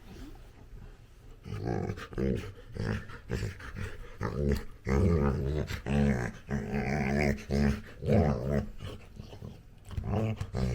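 Labrador retriever puppy play-growling, a run of short low growls that starts about a second and a half in and is densest in the middle.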